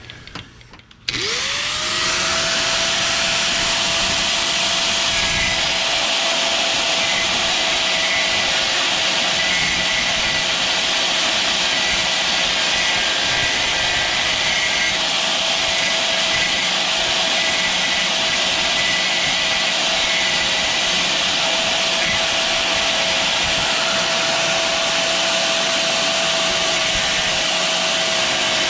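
Small angle grinder with a thin cut-off disc switched on about a second in, its whine rising quickly as it spins up, then running at a steady high whine while it trims sticking-up aluminium edges.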